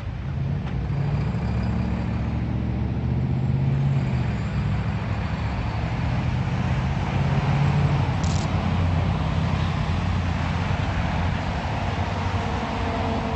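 Road traffic passing close by: a diesel roll-off container truck's engine hum, then cars' tyres and engines, making a steady haze of road noise.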